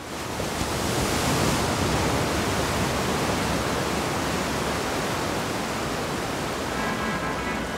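Steady rushing water noise that fades in at the start and holds even, without separate splashes or rhythm. Music starts to come in faintly near the end.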